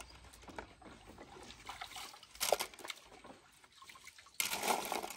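Water sloshing and trickling as white plastic hydroponic net cups are washed by hand in a basin, with a light knock about halfway and a louder splash of water near the end as a cup is lifted and drained.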